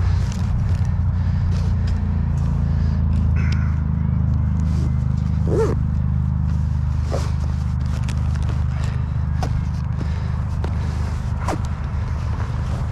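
A steady low rumble that starts suddenly, with scattered clicks and scrapes from the compression straps and buckles of a canvas tent's carrying bag being handled.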